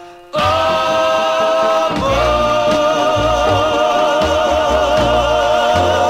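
Doo-wop vocal group singing a ballad in close harmony over a band, holding long sustained chords. A new chord comes in sharply just after the start and shifts about two seconds in to a wavering held chord, the song's ending.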